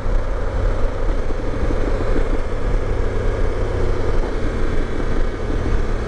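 BMW F750GS parallel-twin engine running with wind rush as the bike slows off the throttle and is shifted down from fifth to third without the clutch, using the Gear Shift Assist.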